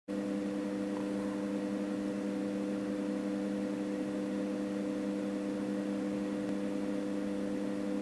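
Steady hum of a few fixed low tones over faint hiss, with no change in pitch or level.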